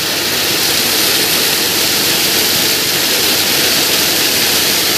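Hot spring water pouring steadily down a chute and splashing into the pool below: a loud, even rush of falling water.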